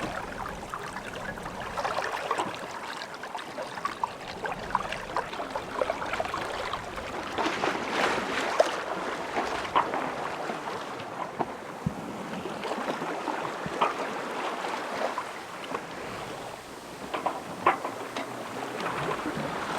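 Water sloshing and splashing irregularly against a small sailboat's hull, with many small splashes and ticks.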